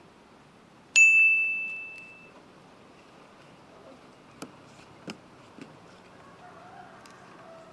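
A single bright metallic ding about a second in, ringing on one clear pitch and fading away over about a second, followed by a few faint clicks.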